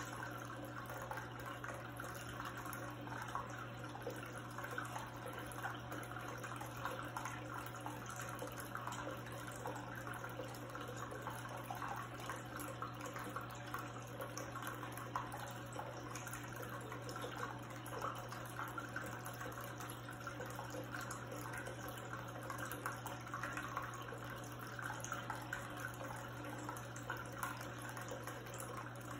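Tabletop rock-tier water fountain: water steadily trickling and splashing down its tiers into the basin, over the low steady hum of its small electric pump.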